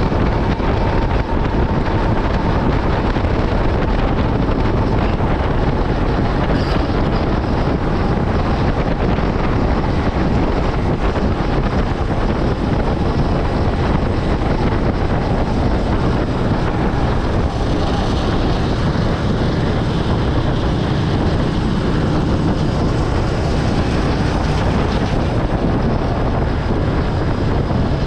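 Yamaha Byson FZ16's single-cylinder engine with its stock exhaust running while the motorcycle is ridden, mixed with steady heavy wind noise on the microphone.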